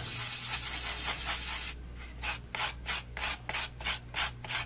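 Palette knife mixing acrylic paint on a foam tray palette: a steady scraping rub, then quick back-and-forth strokes at about four a second in the second half.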